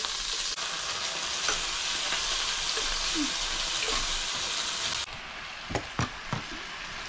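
Meat sizzling in a tabletop electric grill pot, a steady frying hiss that drops in level about five seconds in. A few short clicks follow near the end.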